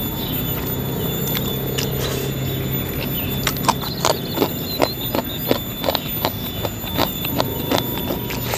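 Close-miked mouth sounds of a person chewing crispy shredded beef dendeng balado, with sharp, irregular crunches about two or three a second starting a few seconds in. Before the crunching there is a low steady hum.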